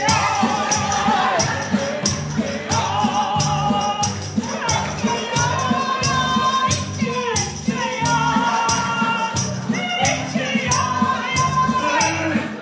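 A very high voice singing long held notes with vibrato, over strummed acoustic guitar chords and a light, steady percussive tapping.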